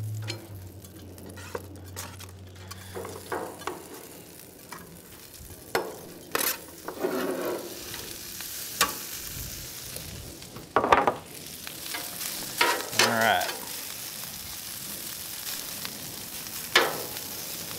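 Cold cooked rice sizzling in butter on a flat-top griddle while a metal spatula scrapes it off a sheet pan and spreads it across the plate. A steady faint sizzle runs under it, broken by several sharp metal scrapes and clinks of spatula and pan on the griddle top, the loudest about eleven seconds in.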